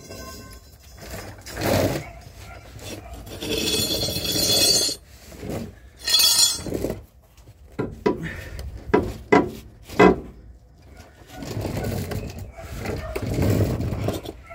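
Hand work on a van's front wheel hub and brake assembly: irregular metal clinks, knocks and scraping of tools and parts, with a run of sharp knocks a little past the middle.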